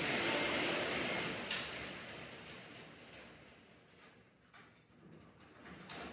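Steel roll-up shop door rattling down, stopping with a sharp clack about a second and a half in. Then come scattered faint clicks and a knock near the end.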